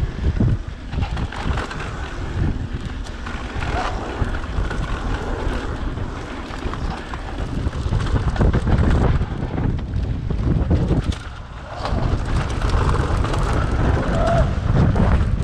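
Wind buffeting the camera microphone and mountain-bike tyres rumbling over a dry dirt trail on a fast descent, with frequent knocks and rattles from the bike over bumps.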